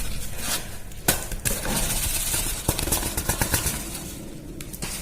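Handling noises of ground powder being moved into a plastic container: a sharp click about a second in, then a run of small clicks and scraping.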